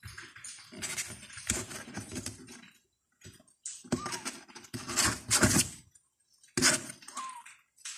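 Irregular bursts of rustling and clattering noise, with a brief high kitten mew near the end.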